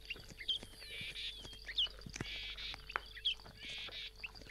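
Lions feeding on a Cape buffalo carcass: scattered wet crunching and tearing sounds. Birds chirp over them, with short trills about once a second and quick whistled chirps.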